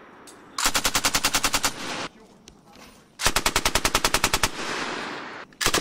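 M240B belt-fed 7.62 mm machine gun firing three short automatic bursts of roughly a dozen rounds each, about ten shots a second, with a short echo trailing each burst. The third burst starts just before the end.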